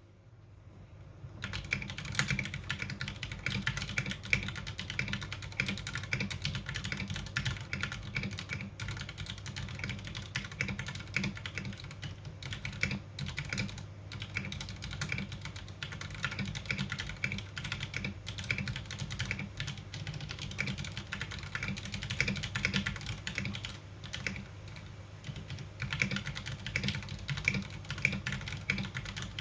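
Ducky One 2 SF mechanical keyboard with Cherry MX Silver linear switches being typed on fast and continuously, a dense run of key clacks that starts about a second and a half in. Recorded through a smartphone microphone.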